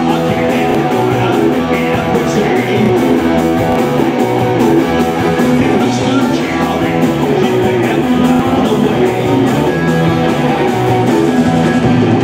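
Live rock band playing loud: electric guitars, bass guitar and drums on a steady beat, with a man singing into a microphone.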